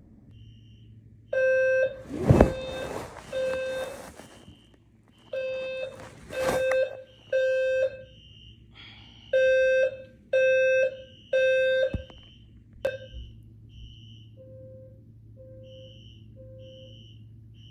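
Fire alarm sounding in the temporal-three pattern: loud low beeps in groups of three with a pause between groups, and a second, higher beep repeating in between. Two loud rustling thumps come during the first two groups, and after about fourteen seconds the low beeps go on more faintly.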